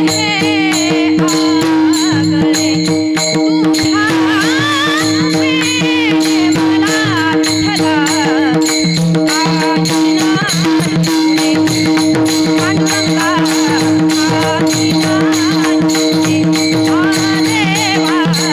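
Varkari kirtan music: a woman sings a wavering, ornamented melodic line over a steady harmonium drone, with pakhawaj drum strokes and the even clash of small hand cymbals (taal) keeping the beat.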